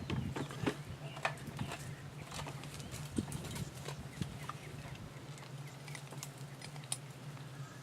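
Honey bee swarm buzzing as a steady low hum, with scattered light clicks and knocks of handling throughout.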